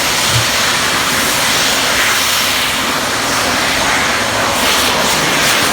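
Bang fai lan, a giant black-powder festival rocket, firing and climbing: its motor gives a loud, steady, jet-like roaring hiss.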